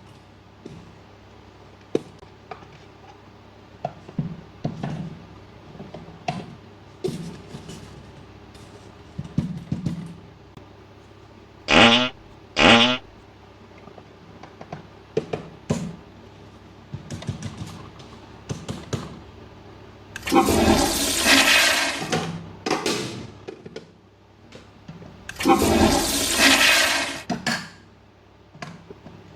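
A toy toilet's flush sound effect, played twice, each a rushing flush of about two and a half seconds, among small clicks and taps of plastic pieces being handled. Near the middle come two short warbling electronic tones.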